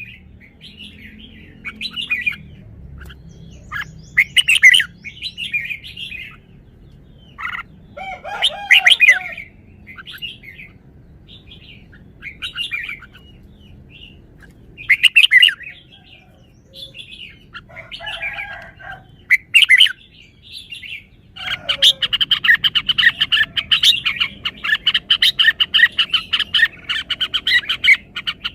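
Red-whiskered bulbul singing short, bright phrases with pauses between them. About 21 seconds in, it breaks into a long run of rapid, repeated chattering notes.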